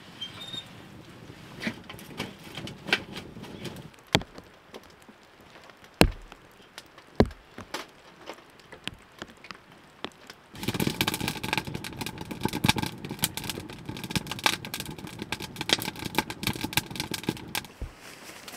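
Small wood-burning tent stove with split logs being fed in: sharp wooden knocks and fire crackles, a few louder thunks in the first half. From about ten seconds in, a steadier hiss thick with crackling takes over for several seconds, then stops.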